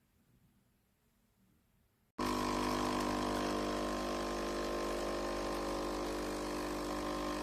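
A loud, steady mechanical hum that starts suddenly about two seconds in after near silence and holds an even pitch throughout.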